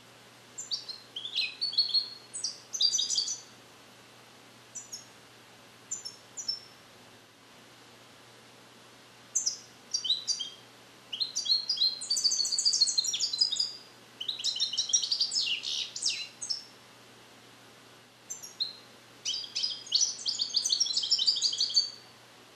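A year-old captive-bred European goldfinch singing, trained in the Neapolitan passata style: three bouts of rapid, high twittering trills and chirps with a few single notes between them. The song is still being learned, with the passages repeated but not yet complete.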